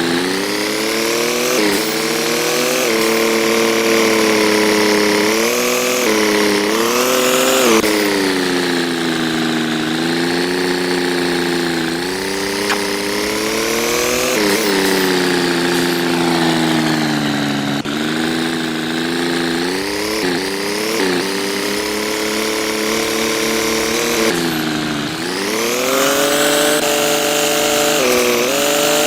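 An engine running steadily, its speed and pitch rising and falling again and again.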